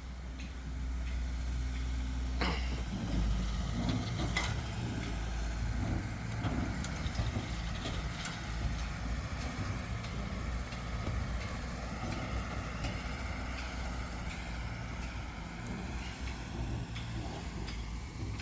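A vehicle engine running steadily with a low rumble, with a couple of sharp knocks a few seconds in and scattered lighter clicks.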